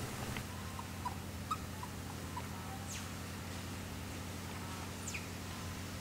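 Faint high chirps, then two quick whistles sliding down in pitch, like birds calling, over a steady low hum.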